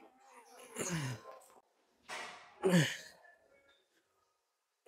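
A man's forceful exhales with a short grunt, twice, each falling in pitch, as he pulls a dumbbell up in single-arm rows.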